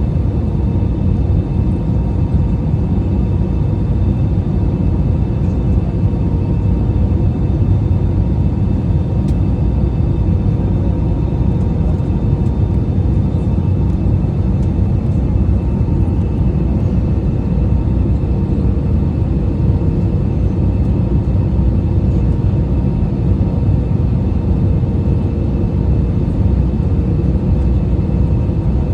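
Steady cabin noise inside an Airbus A319 airliner in flight: a deep engine and airflow rumble with a few faint, steady whining tones above it.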